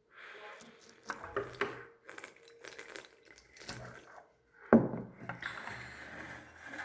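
Slime being handled and cut on a plate: scattered light taps and clatter of utensils, with one sharp knock just before the five-second mark.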